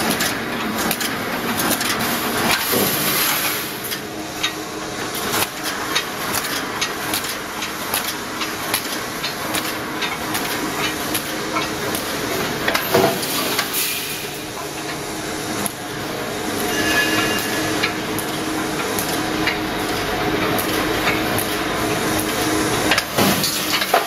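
Wire mesh panel welding machine running: frequent short clanks and knocks of the welding and mesh-pulling mechanism over a steady machinery noise.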